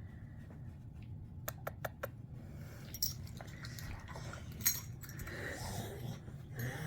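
A dog snoring: a steady low rumble, with a quick run of light clicks about a second and a half in and another sharp click later.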